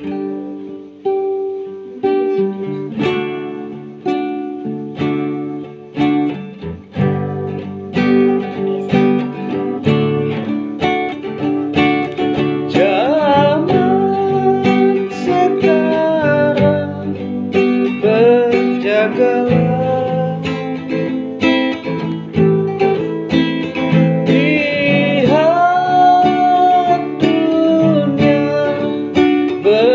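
A man playing an acoustic guitar, strumming chords alone as an intro, then singing a song over it from about twelve seconds in.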